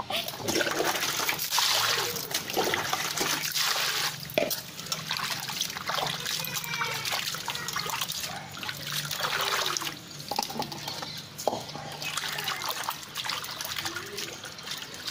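Water splashing and sloshing in a steel bowl as pieces of raw fish are rubbed and rinsed by hand, in irregular bursts.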